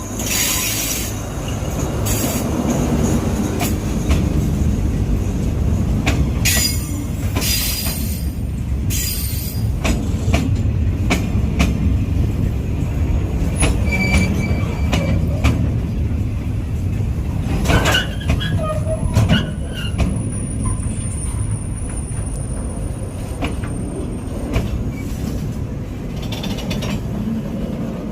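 Freight train of oil tank wagons hauled by an Alsthom AHK diesel-electric locomotive rolling past with a steady heavy rumble. The wheels click repeatedly over the rail joints, with a few brief wheel squeals about halfway through.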